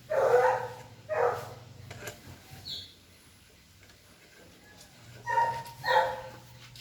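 A dog barking: four short barks in two pairs, one pair near the start and one near the end.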